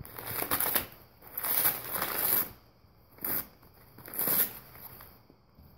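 Brown packing paper crinkling and tearing as a golden retriever chews and rips at it, in four bursts of a second or less.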